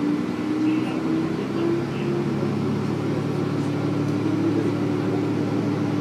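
Komatsu diesel engine of a re-engined KiHa 47 railcar, heard inside the cabin from the seat above it with the windows closed. Its pitch climbs over the first two seconds, then it runs steadily under load.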